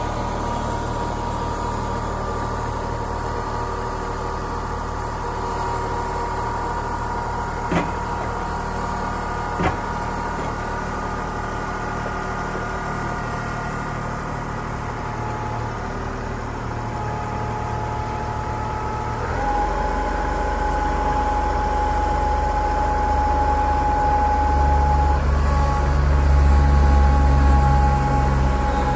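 Kubota compact tractor's diesel engine running steadily, with two sharp clicks about a third of the way in. Past the middle its note drops and grows louder as the loader's pallet forks take up a heavy tote of green firewood.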